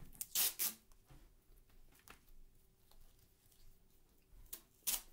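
Watercolour paintbrush strokes: short scratchy swishes of bristles, two close together about half a second in and another near the end, with fainter strokes between.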